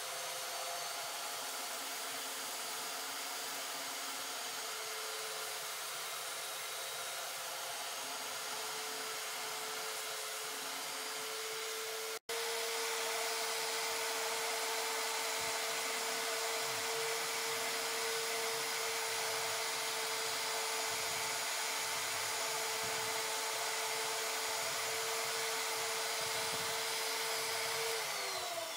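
Bench drill press motor running steadily, spinning a wooden screwdriver handle while it is sanded and then rubbed with an abrasive pad, a steady hum over a rubbing hiss. Near the end the motor is switched off and its hum falls in pitch as it winds down.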